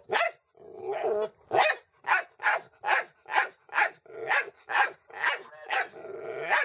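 Dog barking at a cat in a steady run of short barks, about two a second.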